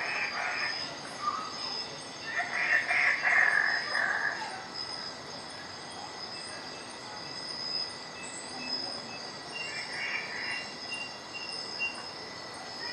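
Outdoor ambience: a steady high-pitched chirring like insects, with a few short bursts of bird chatter, the loudest a couple of seconds in.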